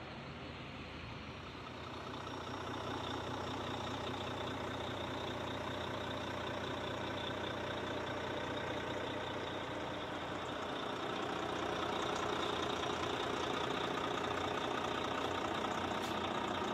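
Volvo D13 inline-six turbo diesel idling steadily, getting louder about three seconds in and again near twelve seconds.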